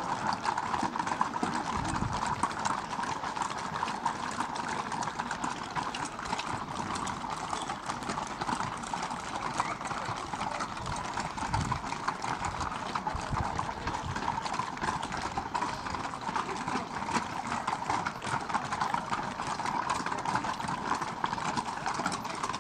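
Many horses walking in a procession, their hooves clip-clopping on cobbled stone paving in a dense, continuous clatter of overlapping hoof strikes.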